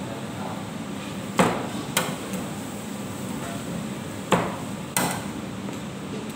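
Meat cleaver chopping a carrot on a wooden cutting board: four sharp knocks in two pairs, the first pair about a second and a half in and the second about four seconds in, over a steady background hum.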